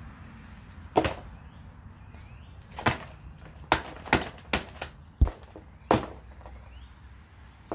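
Hammer blows striking a flip phone, about seven sharp irregular strikes, the hardest a little past the middle.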